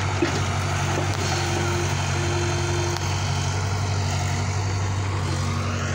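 Heavy diesel engine of earthmoving machinery running steadily at low, even revs, with a short higher whine twice in the first half.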